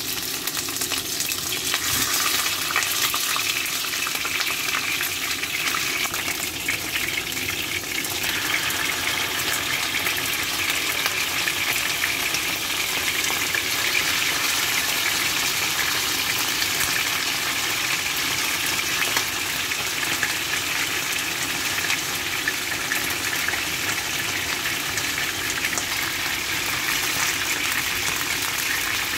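Pieces of tongkol, a small tuna, sizzling as they fry in hot oil in a frying pan; the sizzle grows fuller about eight seconds in, as more pieces are in the oil, and then holds steady.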